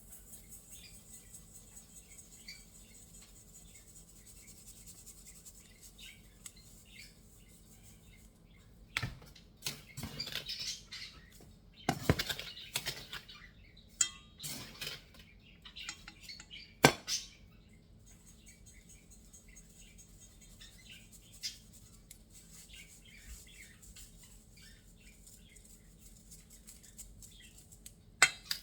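Kitchen utensils and bowls clinking and scraping while baking ingredients are measured out, busiest in the middle, with a sharp clink about 17 seconds in and another near the end. Faint chirps in the background.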